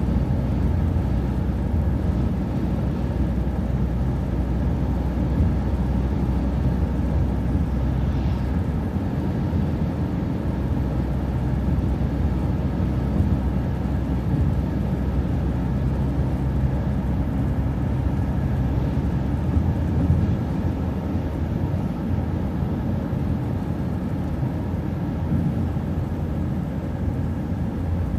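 City transit bus running steadily along the road, engine drone and road noise heard from inside the bus, with a faint steady whine above it.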